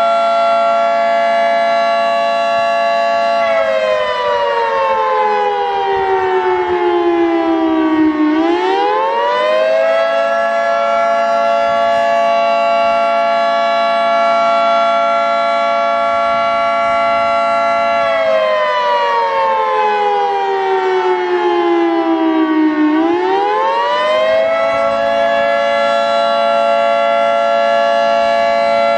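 Federal Signal 3T22 three-tone outdoor warning siren sounding the Attack signal. Its steady chord twice drops slowly in pitch over about five seconds, swings back up within a second or two, and holds again.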